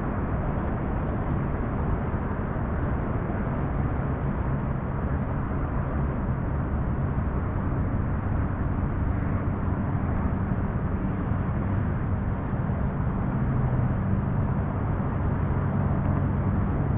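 Wind rumbling steadily on the microphone, heaviest in the low end. A faint low engine drone joins about six seconds in and carries on under the wind.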